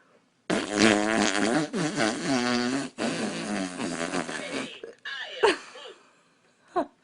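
A long, buzzy fart that wavers up and down in pitch, breaking briefly once, then two short blips near the end.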